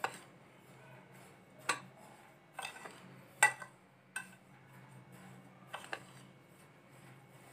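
A metal spoon stirring a bowl of dry ingredients in a glass bowl, clinking against the glass about half a dozen times, loudest about three and a half seconds in. A low steady hum runs underneath.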